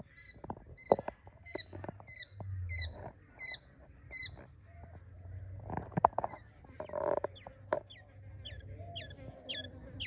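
Two-week-old quail chicks peeping: runs of short, high chirps, each dropping at the end, about two a second. The chirps come in the first half and again near the end, with a few sharp knocks between them.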